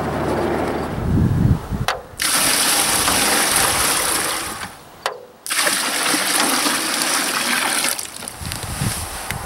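Water pouring from a metal bucket into a plastic mixing tub, a steady gushing splash that breaks off briefly about halfway and eases as the bucket empties. A few low thumps come before the pour.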